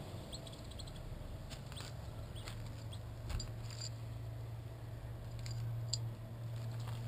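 Quiet outdoor background: a steady low hum with a scattering of short, high chirps and clicks, about eight of them, the sharpest about six seconds in.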